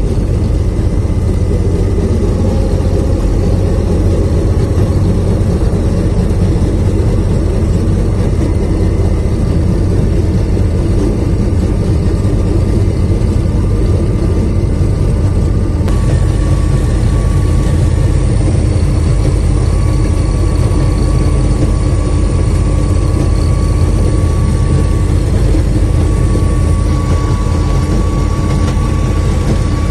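Rail speeder (track motor car) running steadily along narrow-gauge track: continuous engine and rolling noise. The sound shifts about halfway through, and a faint steady whine joins it.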